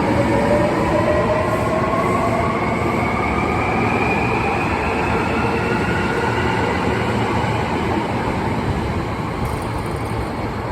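A Hankyu 1300 series electric train accelerating away. The inverter and traction motors give a whine that climbs steadily in pitch over the rumble of the wheels, and it grows fainter near the end as the train pulls away.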